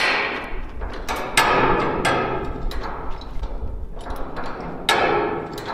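Steel farm jack (high-lift style) being let down under a loaded shipping container: several sharp metallic clanks, each ringing briefly, as the jack's mechanism is tripped and lowered a notch at a time.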